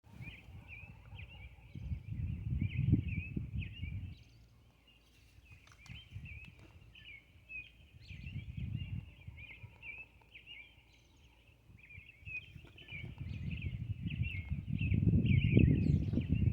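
Many small birds chirping together in a dense, unbroken chorus of short high notes. A low rumble swells up three times, loudest near the end.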